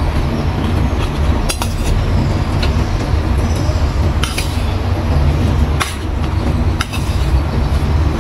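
A metal spoon clinks and scrapes against a stainless steel bowl several times, over a steady low rumble.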